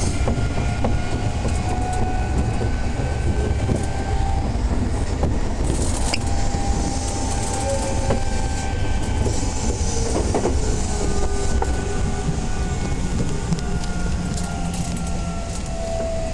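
Odakyu 8000 series electric train car (DeHa 8111, with a Mitsubishi SiC-VVVF inverter) running: a steady low rumble of wheels on rail, with thin whining tones that drift slowly in pitch.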